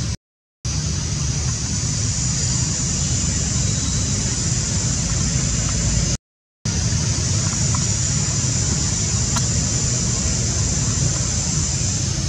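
Steady outdoor background noise: a low rumble under a high, even hiss. It drops out to silence twice for about half a second.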